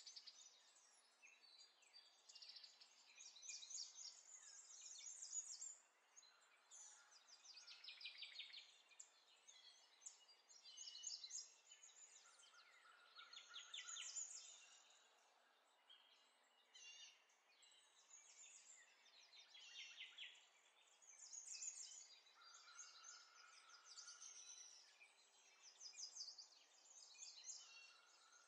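Faint birdsong: small birds chirping and trilling over and over, with a few short steady whistled notes.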